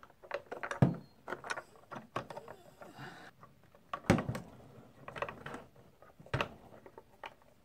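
A Phillips screwdriver turns a screw into the plastic turning mechanism of a clear plastic incubator lid: irregular small clicks and scrapes. Three louder knocks come from the plastic lid being handled, about a second in, four seconds in and near the end.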